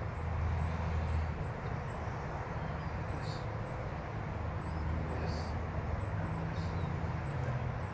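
Outdoor ambience: a high-pitched insect chirping in an even rhythm, about three chirps a second, over a steady low rumble.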